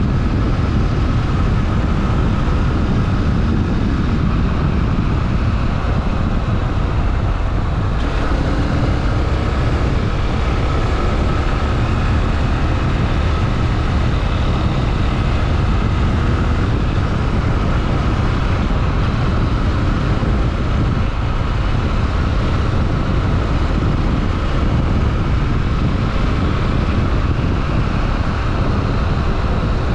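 Honda XRE 300 Rally motorcycle's single-cylinder engine running steadily, with a dense low rumble and no change in level.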